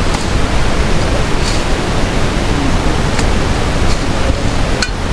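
Steady rushing noise of wind buffeting the microphone, with a few faint knocks.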